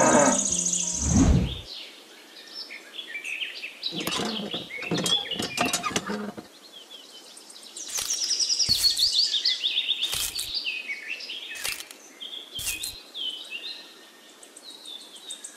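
Birds chirping and singing in quick, repeated notes, with several soft knocks among them. A cow's moo trails off in the first second or so.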